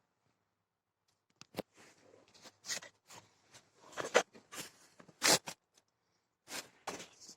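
Scattered handling noises: short rustles, scrapes and clicks of plastic blend door actuators and their packaging being moved about by hand. They start after a quiet first second or so.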